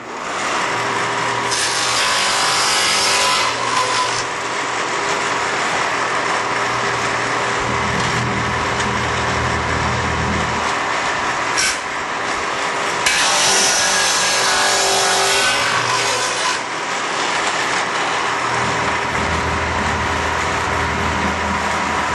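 Shopsmith table saw fitted with a dado blade, starting up at the beginning and running steadily while grooves are cut across a wooden board held in a jig. The cut gets louder and brighter twice: about two seconds in and again around thirteen seconds in.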